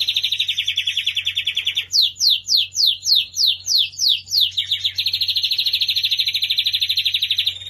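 Lancashire canary singing: a fast trill, then a run of about a dozen quick down-sliding whistled notes at about four a second, then the fast trill again, breaking off near the end.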